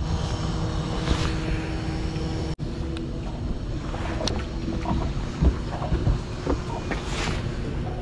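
Steady engine hum with wind buffeting the microphone, cutting out for an instant a little over two seconds in, with a few short knocks in the second half.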